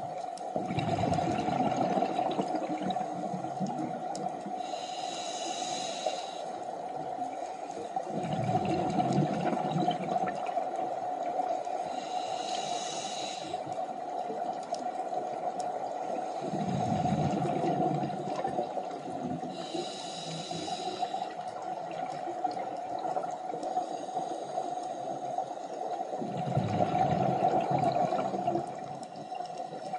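Scuba diver breathing underwater through a regulator: four bursts of exhaled bubbles about eight seconds apart, alternating with the short hiss of inhalations. A steady hum runs underneath.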